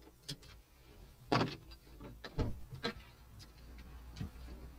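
Inside a moving car: a low, steady engine and road hum with a scattering of sharp clicks and knocks, the loudest about a second and a half in.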